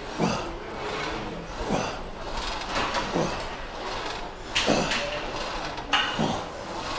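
Plate-loaded leg press sled sliding on its rails with each rep, a rubbing, sliding sound that repeats about every second and a half.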